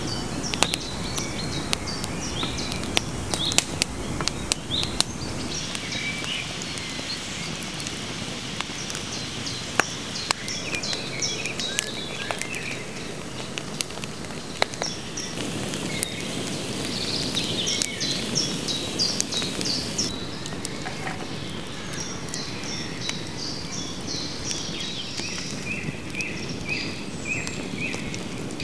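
Open wood fire crackling, with sharp pops scattered throughout over a steady low rush, while forest birds sing. Near the end one bird repeats a short call about six times.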